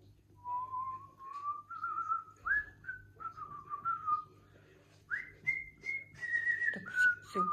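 A person whistling a melody by mouth, artistic whistling: a single clear tone moving in steps and glides between notes, with quick warbling trills on some held notes.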